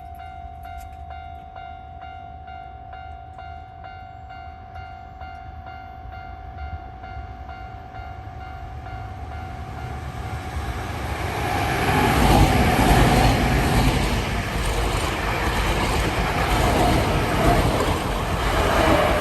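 A Hankyu electric train approaches and passes. A steady repeating bell-like tone sounds for the first several seconds, then rumbling and rail noise build up and stay loud for the second half as the train goes by.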